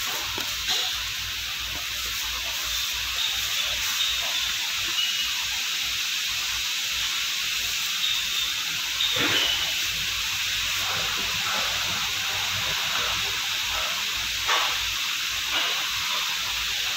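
A steady, even hiss that does not change, with a few faint knocks about a second in, near the middle, and late on.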